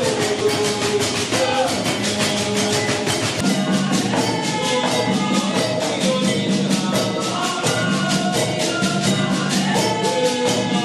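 Music: fast, steady percussion with shaker and tambourine strokes over drums, under a melody, with a low drum or bass note that comes in more strongly about three and a half seconds in.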